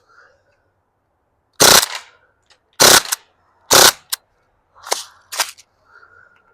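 CO2-powered AR-style BB pistol firing: three loud sharp shots about a second apart, then two fainter cracks near the end.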